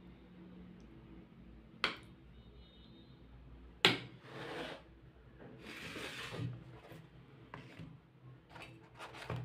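A metal serving spoon clinks against a bowl and plate while potato curry is served. There are several sharp knocks, the loudest about four seconds in, with stretches of scraping and rubbing between them.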